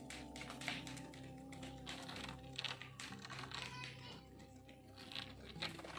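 Many light, irregular clicks and taps, like rapid typing, over a few faint steady tones.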